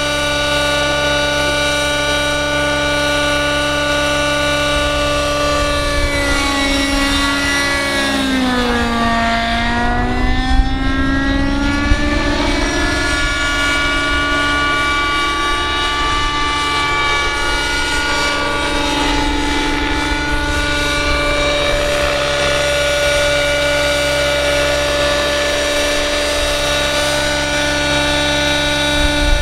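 Radio-controlled scale Hughes 500 model helicopter flying, its motor and rotor giving a steady whine made of several tones. About seven seconds in the pitch sinks, bottoms out around nine to ten seconds, and climbs back to a steady note a couple of seconds later.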